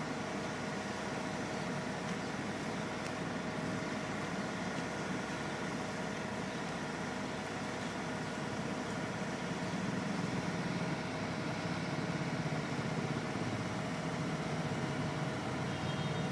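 Mobile crane's engine running steadily while it hoists a load, with a steady whine over the engine noise; the low engine sound grows a little louder from about ten seconds in.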